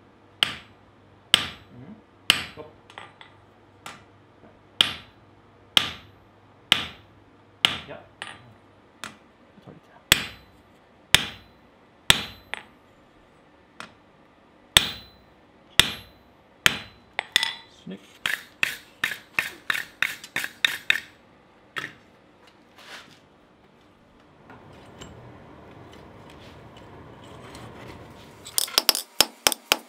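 Sledgehammer blows on a handled top tool held against red-hot steel on an anvil: sharp metallic strikes about once a second. About eighteen seconds in comes a quicker run of blows, then a steady rush from the coal forge fire, and rapid hammering starts near the end.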